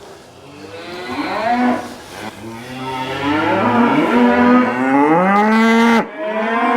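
Cattle mooing: several long, drawn-out calls that overlap and rise in pitch at their ends, broken off suddenly about six seconds in, then another moo.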